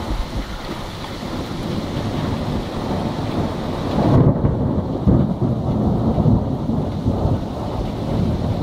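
Thunderstorm: a steady hiss of rain, then a low rumble of thunder swelling about four seconds in and rolling on in several surges.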